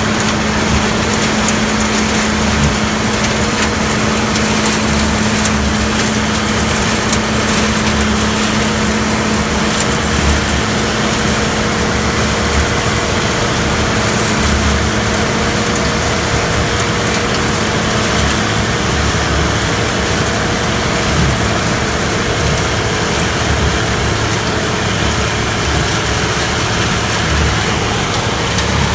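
Gleaner combine running during soybean harvest: a steady, loud engine and machinery drone with a low hum that fades away about two-thirds of the way through.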